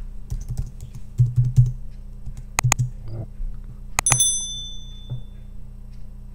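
Keys typed on a computer keyboard, entering a password: a run of light key clicks, then a couple of harder key presses. About four seconds in, a sharp click is followed by a brief high ringing tone.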